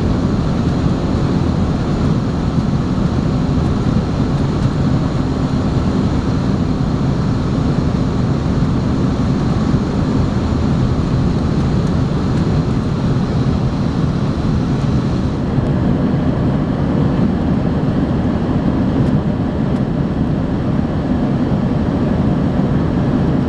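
Cabin noise of an Embraer ERJ 145 regional jet climbing out after takeoff: a steady, loud rush from its two rear-mounted turbofan engines and the airflow past the fuselage, heaviest in the low range with a faint steady hum. The higher part of the hiss eases slightly about two-thirds of the way through.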